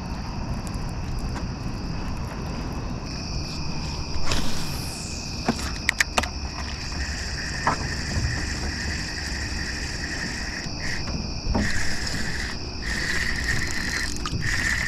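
A steady chorus of night insects chirping at several pitches, with another band of chirping joining about halfway through. A few sharp clicks near the middle, from handling of the fishing rod and reel.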